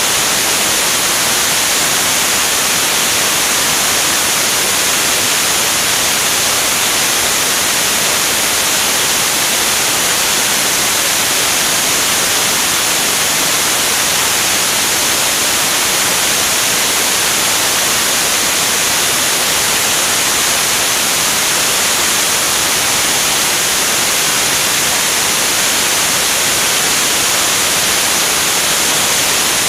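Loud, unbroken rush of airflow over a wing-mounted camera in flight, a steady hiss strongest in the highest frequencies.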